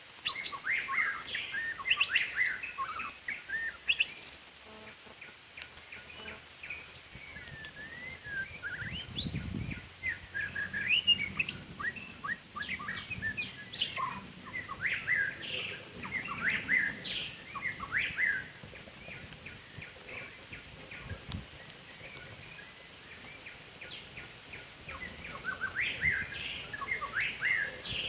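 White-rumped shama singing: varied bursts of quick chirps and clear whistles, with a couple of short pauses.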